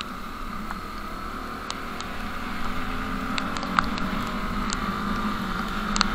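Motorcycle engine running steadily while riding, with road and wind noise, gradually getting a little louder, and a few scattered sharp ticks.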